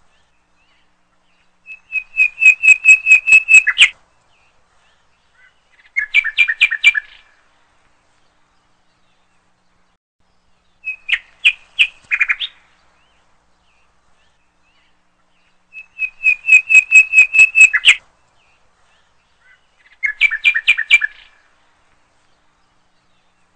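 A songbird singing five short phrases a few seconds apart, each a quick run of repeated chirping notes at about five notes a second.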